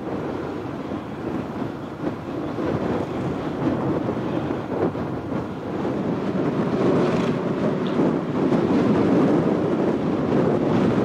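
Wind buffeting the microphone: a rushing, rumbling noise that swells a little louder in the second half.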